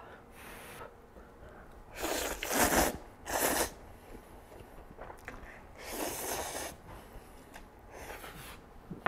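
A man slurping jjapaguri, black-bean-sauce instant noodles, from a bowl: two slurps close together about two seconds in, another around six seconds, and a shorter one near the end.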